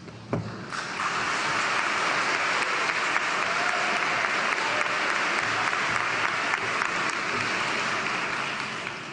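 Audience applauding, swelling in within the first second and tapering off near the end.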